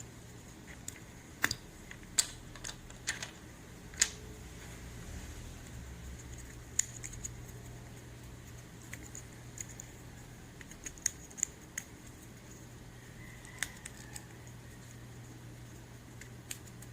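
Irregular small, sharp plastic clicks and taps from handling mechanical keyboard switches and a switch opener, a few louder snaps among lighter ticks.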